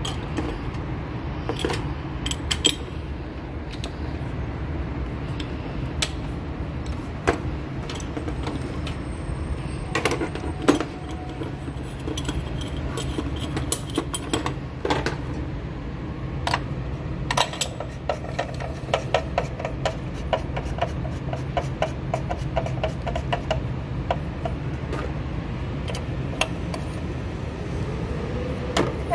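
Metal hand tools clinking and knocking in the spark plug wells of a Mitsubishi Lancer EX engine as the spark plugs are worked out with a T-handle plug wrench, with a stretch of quick, even clicking past the middle. A steady low rumble runs underneath.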